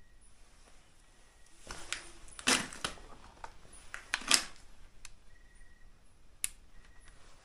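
Handling noise: a few sharp clicks and knocks, the loudest about two and a half and four seconds in. A faint short high beep sounds a few times between them.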